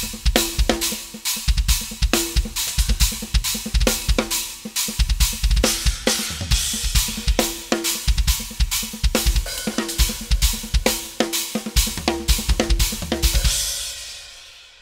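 Drum kit groove of kick and snare with a stick striking a Meinl cymbal stack, a 14-inch Byzance Dual Multi-Trash mounted hi-hat style on a 16-inch Classics Custom Dual Trash China, giving short, trashy hits. The playing stops near the end and the last hit rings away.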